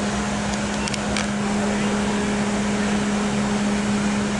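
Steady mechanical drone with a constant low hum, like an engine running, and a second, higher tone joining about one and a half seconds in; a few faint clicks about a second in.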